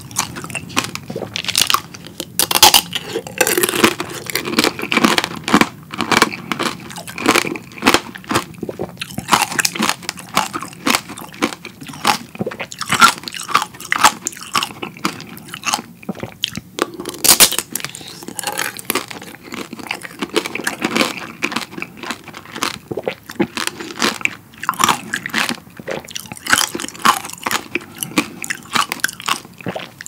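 Close-miked crunching and chewing of strawberry tanghulu: the hard, glassy sugar shell cracks between the teeth in many sharp crackles, one after another.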